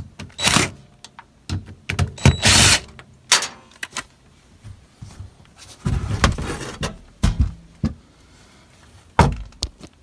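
Sheet-metal access panel of an air handler being opened and taken off: a string of irregular knocks, clicks and scraping rattles, with a sharp knock near the end.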